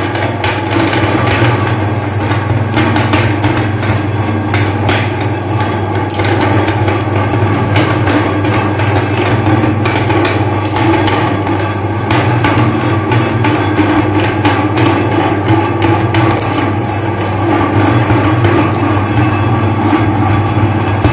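Electric meat grinder's motor running with a steady hum while its auger crushes hard-candy lollipops, with repeated sharp cracking and clattering of the candy breaking up.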